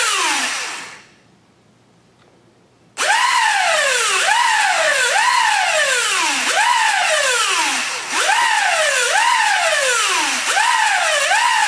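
Syma X8C/X8W brushed quadcopter motors being overdriven on a 14.8 V 4S battery, spinning up and winding down in repeated surges. Each surge is a quick rising whine that falls away over about half a second, coming roughly once a second and a little faster near the end, with a two-second pause about a second in. One motor is smoking and burning out.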